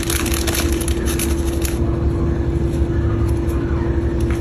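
A hot pan of raw pork mesentery in vinegar and water on a stovetop: light crackling and ticking over a steady mechanical hum with a low rumble.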